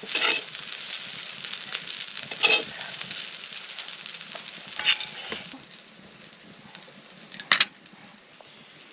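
Fried rice sizzling in a pan while a metal spoon stirs and scrapes it, clinking against the pan a few times. The sizzle dies down about halfway through, and a sharp metal clank comes near the end.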